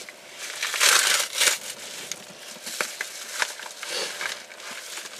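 A mail package being opened by hand: packaging crinkles and tears, loudest about a second in, followed by smaller crackles and clicks.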